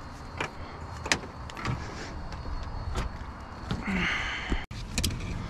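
Scattered light clicks and knocks of tools and wiring being handled, with a short hiss about four seconds in.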